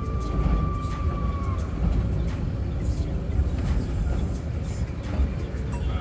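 Low, uneven rumble of a vehicle driving along a city road in traffic, with a thin steady high tone that ends about a second and a half in.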